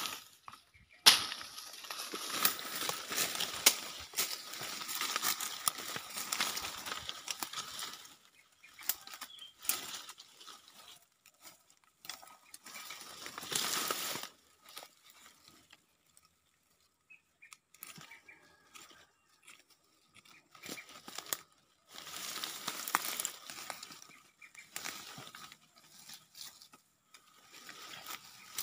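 Dry leaf litter and twigs rustling and crackling as hands dig and pull at the ground, in irregular bursts with a few sharp snaps. The noise stops for several seconds in the middle.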